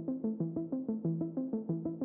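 Background music: a synthesizer or electric keyboard plays a fast, repeating arpeggio of soft notes, about six or seven a second.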